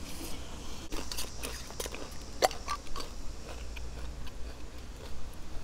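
A person chewing and eating close to the microphone: scattered soft clicks and crunches over a low steady hum.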